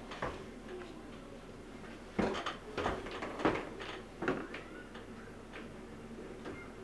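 Footsteps thudding down carpeted wooden stairs. There is one step just after the start, then a run of several uneven steps between about two and five seconds in.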